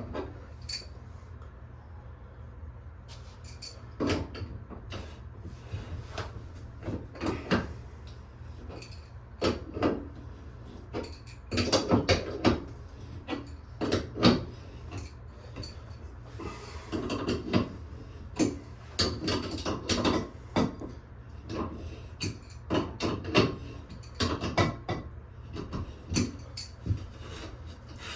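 Irregular knocks, clicks and clatter of hard objects being handled, the loudest bunched together about halfway through, over a steady low hum.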